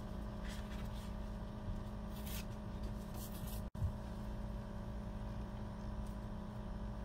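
Steady low electrical hum of room noise, with a few faint, brief rustles of paper as a label sheet is handled.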